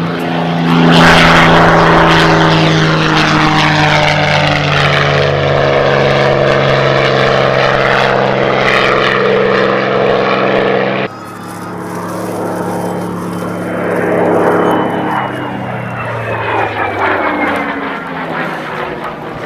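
Spitfire Mk XVI's Packard-built Rolls-Royce Merlin V12 running at full power as the fighter climbs away after take-off and passes close by. About eleven seconds in, the sound cuts suddenly to a quieter, more distant pass, which swells and then falls in pitch as the aircraft goes by.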